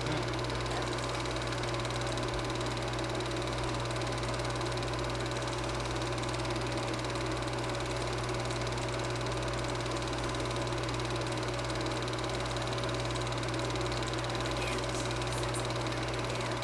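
Super 8 film projector running steadily: a continuous motor whir and hum.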